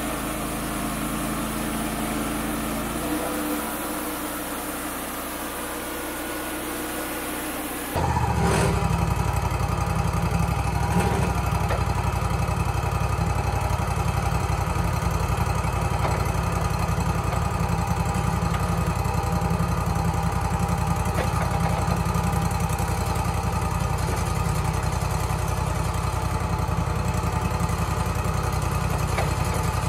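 Wood-Mizer LT35HD sawmill's engine running steadily. About eight seconds in it becomes louder and deeper.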